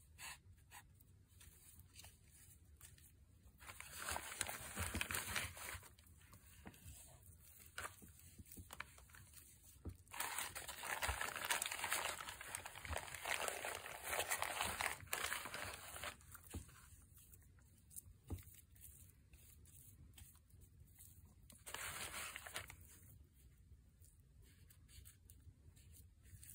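Plastic bag crinkling and rustling as wet cement is scooped out of it by hand and pressed on, with soft squishing, in three spells of a few seconds each.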